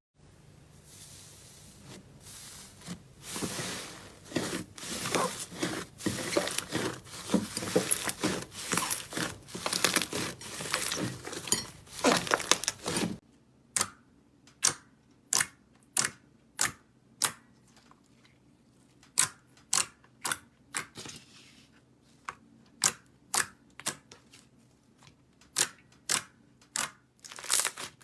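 Slime being squeezed and worked, with dense crackling and crunching. Midway it switches to a run of separate sharp pops, about one or two a second.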